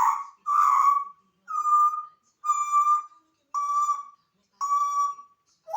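African grey parrot giving six short whistled calls about a second apart, each holding one level note, the first two rougher and the last four clearer.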